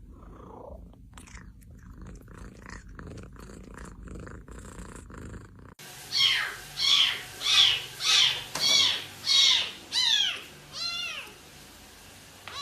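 A cat purring. Then, about six seconds in, a quick run of about nine short, high-pitched meows, roughly two a second, growing fainter near the end.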